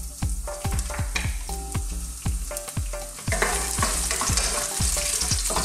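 Chopped garlic sizzling in hot oil in a pan while being stirred, with regular scraping strokes. The sizzle grows louder about three seconds in.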